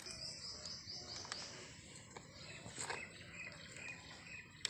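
Faint bird chirps over quiet outdoor background: a quick run of short high calls in the first second, then a few scattered faint ticks.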